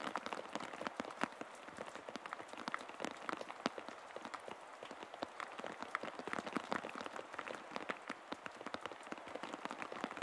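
A dense, irregular patter of many small clicks over a steady hiss, starting abruptly and keeping up an even, rain-like texture.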